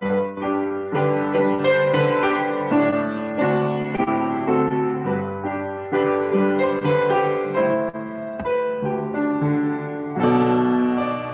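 Piano music: a flowing melody over chords, with no voice.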